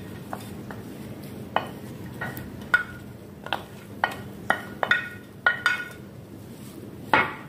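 Wooden spoon knocking and scraping against glassware as chopped vegetables are scraped from a glass dish into a glass mixing bowl: about a dozen light clinks and knocks, several with a short glassy ring, with a louder knock near the end.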